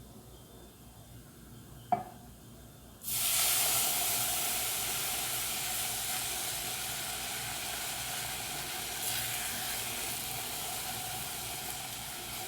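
A hot pan of butter, onion and flour roux sizzling as milk goes in. The hiss starts suddenly about three seconds in and slowly eases, with a single sharp tap just before it.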